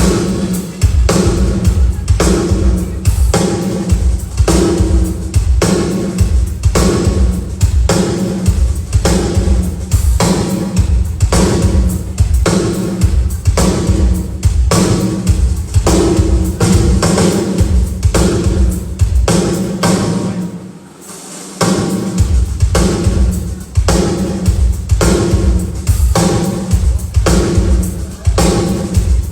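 A drum kit playing a steady groove on kick drum, snare and cymbals, checked on its own at a sound check. The playing pauses briefly about two-thirds of the way through, then picks up again.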